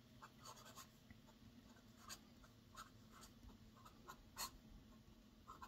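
Broad nib of an Otto Hutt Design 08 fountain pen scratching faintly across paper in short, separate strokes as a signature is written quickly. The sharpest stroke comes a little over four seconds in.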